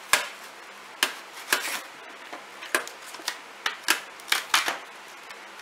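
Plastic blister pack and its cardboard backing being pried and torn open by hand, giving a string of irregular sharp crackles and snaps, about a dozen in all.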